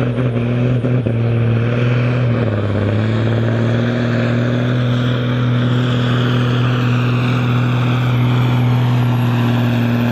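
Case International 7110 Magnum tractor's diesel engine at full throttle, working hard pulling a weight-transfer sled. Its steady drone drops a little in pitch about two and a half seconds in, then holds, with a faint high whistle slowly rising above it.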